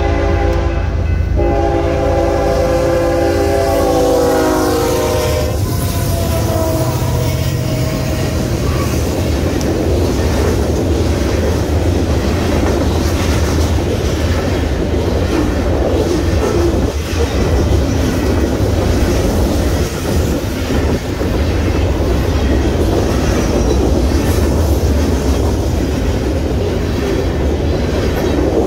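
BNSF freight locomotive's air horn sounds a short blast, then a long one whose chord drops in pitch as it passes the crossing. Then comes the steady rumble and clickety-clack of covered hopper cars rolling over the crossing.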